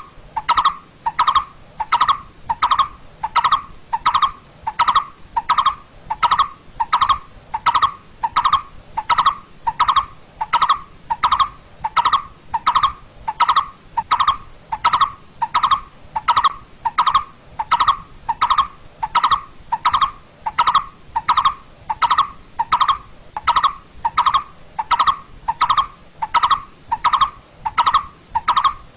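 Coppersmith barbet calling: a steady, evenly spaced series of single notes, about three every two seconds, all at the same pitch and level.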